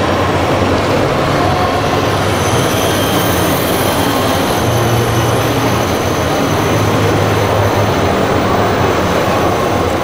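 Radio-controlled scale model truck crane driving: steady mechanical running noise with a low hum, over the general noise of an exhibition hall.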